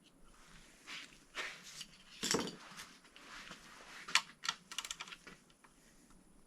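Metal engine parts and hand tools being handled on a workbench: scattered clinks and knocks, one louder knock about two seconds in and a quick rattle of small clicks near the middle.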